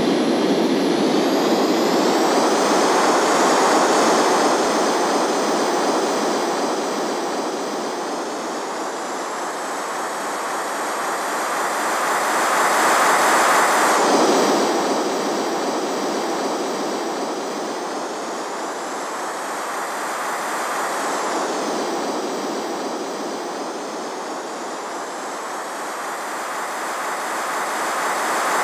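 Radio-controlled model of a Boom Overture jet airliner flying past several times: a steady jet rush and whine that swells as it comes near, with the whine dropping in pitch as it goes by, clearly about halfway through and again a few seconds later. It builds up loud again near the end.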